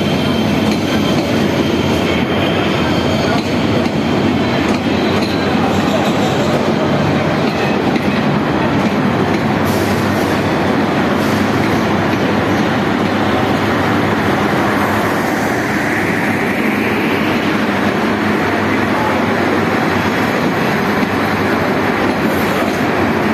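Passenger coaches of a Bangladesh Railway intercity train rolling past close by as it pulls into the station, a loud, steady rumble of wheels on rail, with a brief rising squeal about fifteen seconds in.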